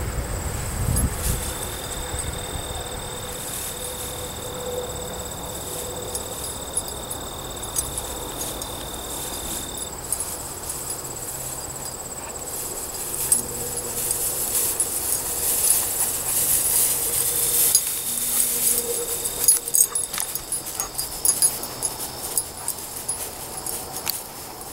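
A black Labrador pushing and sniffing through tall dry grass, the stems rustling and crackling irregularly, most of all in the second half. Insects keep up a steady high trill throughout.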